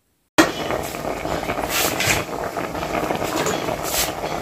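Pot of okra soup bubbling at a simmer: a steady hiss with a crackling, popping texture that cuts in suddenly just after the start.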